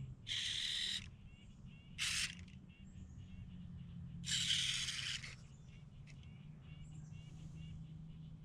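Servo motors of a Robosen Optimus Prime robot toy whirring in three short bursts as its limbs move, with light quick ticking between them.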